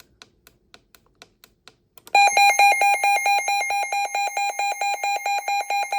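Midland WR-120EZ NOAA weather radio sounding its alert siren: a loud, rapid high beeping, about eight beeps a second, that starts about two seconds in after a run of light clicks.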